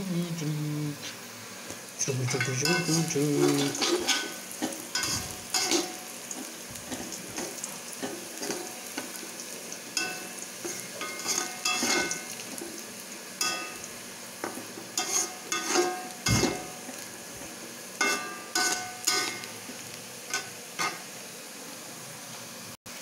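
Chopped garlic sizzling in hot oil in a thin metal wok, stirred with a metal spatula. The spatula's repeated clanks and scrapes against the wok ring out over a steady sizzle.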